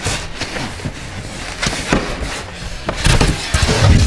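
Cardboard shipping box being opened by hand and its foam packing insert pulled out: scraping and rustling with some heavier knocks, loudest from about three seconds in.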